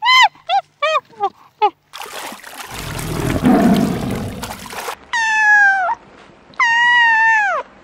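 A white-faced capuchin monkey gives about five short, high chirps. Water splashes and churns as a white tiger plunges through a pool. Two long kitten meows follow, each dropping in pitch at the end.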